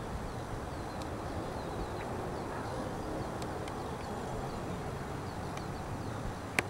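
Quail chicks peeping: many faint, short, high, falling peeps over steady background noise. A sharp click near the end is the loudest sound.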